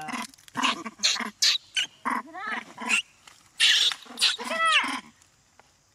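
Long-tailed macaques screaming in a scuffle: a rapid run of harsh screeches and short rising-and-falling squeals that stops about five seconds in.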